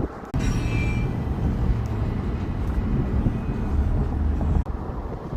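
Freight train of autorack cars rolling past: a steady low rumble with a low hum beneath it. A brief high squeal sounds just after the rumble comes in sharply near the start.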